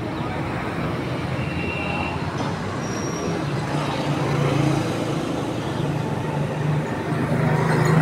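Steady traffic noise with a vehicle engine running, its low hum growing a little stronger in the second half; a couple of brief high chirps come early.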